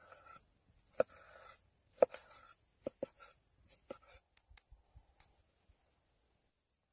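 Cleaver slicing through cooked steak and striking a wooden cutting board: sharp knocks about once a second, the first two each followed by a short rasp of the blade through the meat. After about four seconds come a few lighter taps and clicks.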